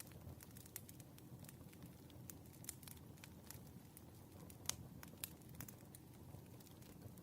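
Wood fire crackling: irregular sharp pops and snaps over a low steady rumble, with one louder pop a little past halfway.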